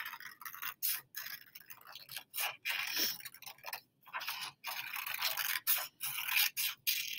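Craft scissors cutting through a paper worksheet: a run of short, crisp snips, about two a second.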